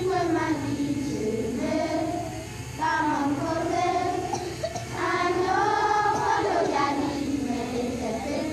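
A large group of children singing together in unison, in sung phrases with short breaks between them.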